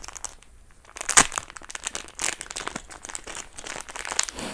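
Packaging being crinkled and torn open by hand: irregular crackling, with a sharp snap about a second in.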